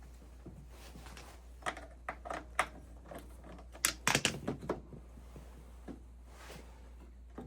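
A cluster of short clicks and knocks from parts or tools being handled, loudest about four seconds in, over a steady low hum.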